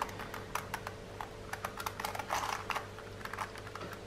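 Black plastic DaYan Gem V2 twisty puzzle being turned by hand: quick, irregular plastic clicks as its layers rotate and snap into line. A longer scraping turn comes a little past the middle.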